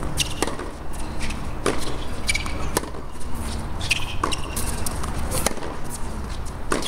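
Tennis rally on an outdoor hard court: a string of sharp racket-on-ball strikes and ball bounces, about one every half second to second, with some short shoe squeaks. A steady low rumble runs underneath.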